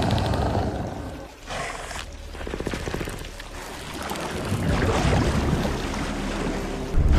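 A string of monster sound effects: a short noisy burst about a second and a half in, a pulsing growl, then a deeper, heavier roar-like sound in the second half.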